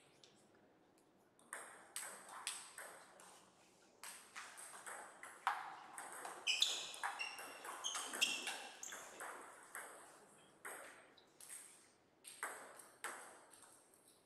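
Table tennis ball clicking off paddles and the table in a rally, the hits coming quickest and loudest in the middle. A few short shoe squeaks on the floor come in among the hits.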